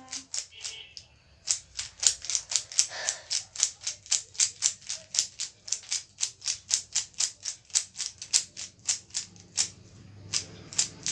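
Plastic Rubik's cube layers being turned in quick succession, about five sharp clicks a second, starting about a second and a half in and thinning out near the end.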